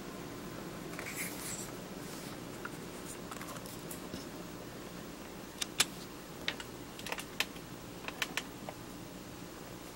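Hands handling a Sony DT 50mm f/1.8 SAM plastic camera lens: a soft rustle about a second in, then a run of about ten light clicks and taps over three seconds, over a steady background hiss.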